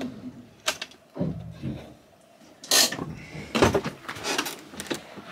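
A camper van's engine stops at the very start, followed by a series of clicks, knocks and rustling handling sounds in the cab, the loudest about three seconds and three and a half seconds in.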